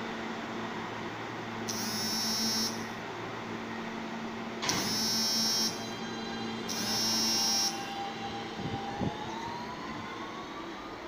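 New York City subway R160-type train at a station: a high electronic door chime sounds three times, about a second each, the second with a knock as the doors close. The train then pulls away with a rising traction-motor whine.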